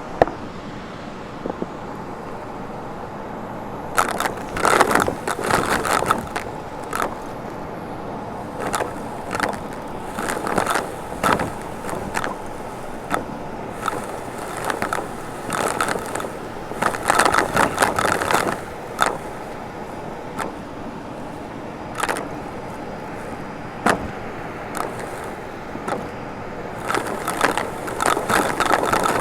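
Vacuum cleaner running steadily, with irregular bursts of crackling and rattling clicks that come and go every few seconds.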